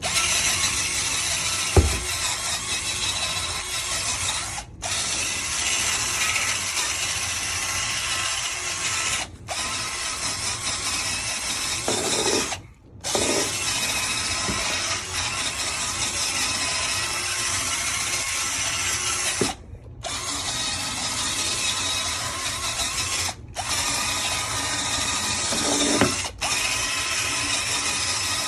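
Shark vacuum cleaner running on carpet: a steady motor whine and brush noise that drops out briefly several times, with a sharp knock about two seconds in.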